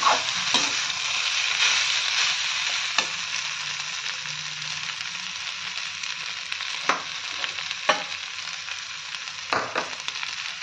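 Fried rice sizzling in a hot metal kadai while being stirred with a perforated metal spatula: a steady frying hiss, with the spatula scraping and clinking against the pan a handful of times.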